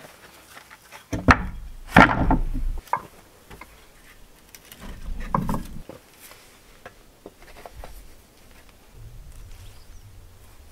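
Flat flagstones handled and set down: two heavy clunks a little over a second in and at two seconds, and another cluster of knocks and scraping around five seconds in as a slab is laid onto the soil. Quieter rubbing and small clicks follow near the end as smaller stone pieces are fitted in the dirt.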